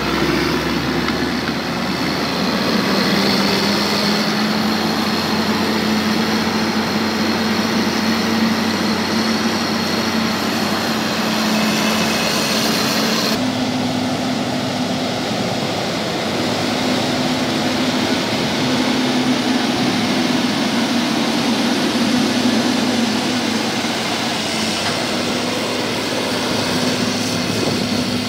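Diesel engine of a motor grader running steadily at work, a constant drone with a low hum. The sound changes abruptly about halfway through, where one recording gives way to another of a grader.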